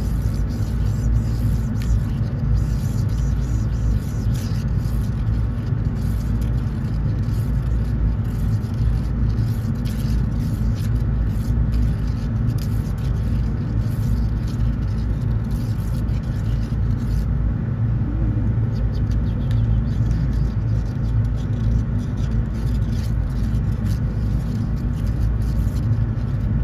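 Steady low engine rumble of motor vehicles running close by, holding an even level throughout.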